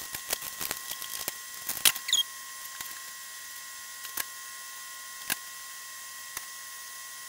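Light clicks and ticks of small things being handled on a workbench, many in the first two seconds, then a few spaced out, over a faint steady high electronic whine.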